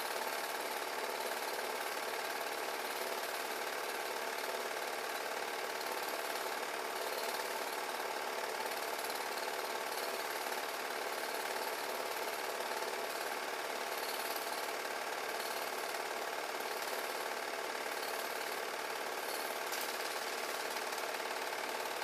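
8 mm home-movie film projector running steadily, its motor and film mechanism making an even mechanical noise with no change.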